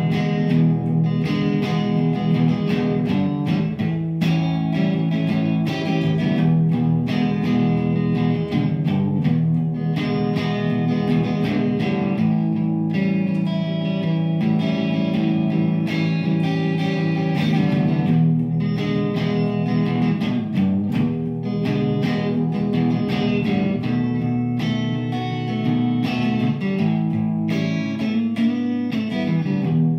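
Electric guitar played through an amplifier: a long instrumental passage with no singing, with busy picked notes over sustained lower tones.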